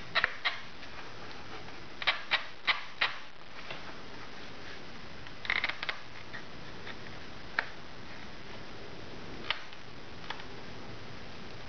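Scattered small clicks and taps of a laptop hard drive with rubber mounts being wriggled and pressed into its bay, over a steady faint hiss. A quick run of four clicks comes a couple of seconds in and a short cluster near the middle, then single clicks.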